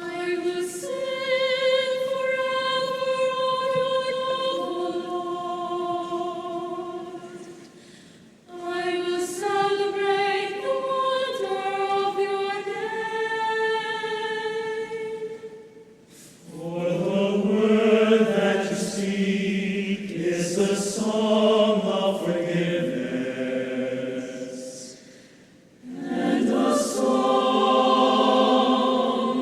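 Choir singing a cappella in four sustained phrases with short breaks between them; lower voices come in for the second half, making the sound fuller.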